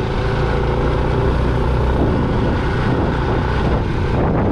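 Motorcycle engine running while riding, with a steady rush of wind and road noise.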